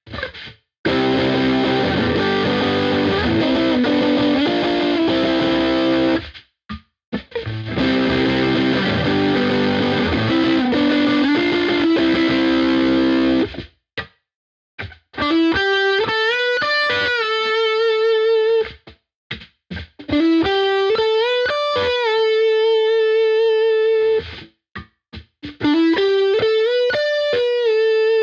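Epiphone Les Paul Black Beauty electric guitar played through heavy distortion. First come two phrases of dense chords that each stop abruptly. Then come three single-note lead phrases, each bending up to a note that is held with vibrato.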